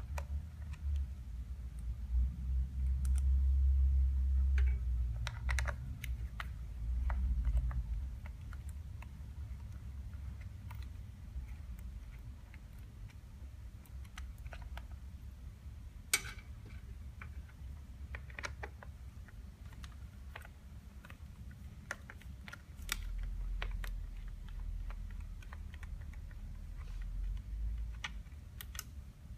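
Scattered small clicks and taps of a screwdriver and metal parts as the wiring harness is unscrewed from the lithium battery terminals, with one sharper click about halfway through. A low rumble comes and goes, loudest in the first several seconds and again near the end.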